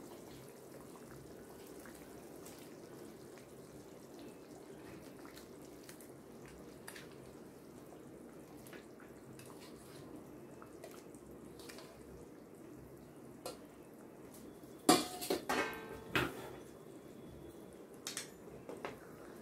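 Tamarind fish curry bubbling at a boil in a steel kadai as whole sardines are slipped in, with faint drips and ticks. About three-quarters of the way through, a loud clatter of the steel bowl knocking on the pan, and a few lighter clinks near the end.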